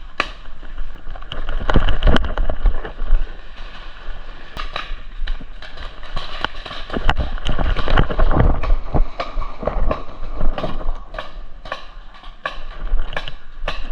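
Irregular sharp pops and knocks during a paintball game, from markers firing and footfalls, over a steady hiss.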